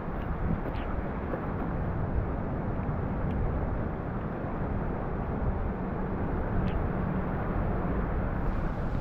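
Steady wind rumbling on the microphone over the open water, with three faint ticks.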